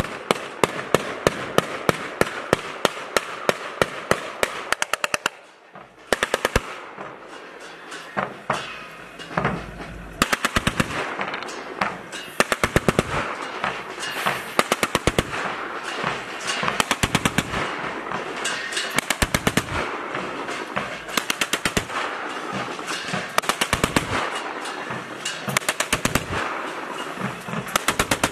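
Truck-mounted electronic salute cannon, a bank of red tubes used in place of firecrackers, firing rapid volleys of sharp bangs, about three a second. Short pauses separate the volleys, with a brief lull about five seconds in.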